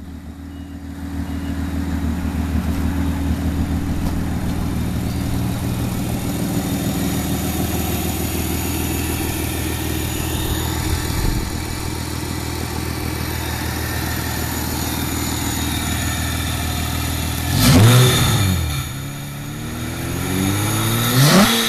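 Hyundai Sonata engine swapped into a Tiburon, with a short-ram intake and custom Hooker headers, idling steadily and then revved twice near the end: a quick blip, then a longer climb that falls back.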